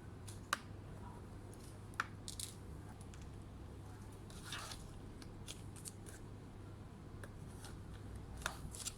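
Hand-work handling sounds: a few sharp clicks and light rustling or scraping, spaced irregularly, over a steady low hum.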